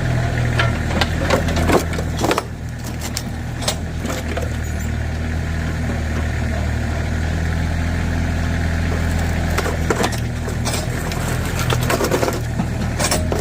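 Tractor backhoe engine running steadily under load, with clusters of sharp cracking and crunching as junk is crushed, in the first two seconds or so and again near the end.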